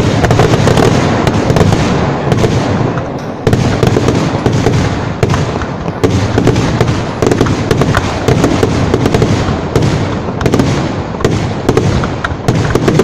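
Dense, continuous barrage of ground-fired fireworks: rapid cracks and bangs running into one another, easing briefly about three seconds in and again around six seconds.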